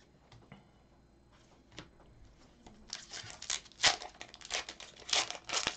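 Upper Deck hockey card pack being torn open by hand, its wrapper crinkling. After a quiet first half, the tearing and crinkling start about three seconds in and are loudest near the end.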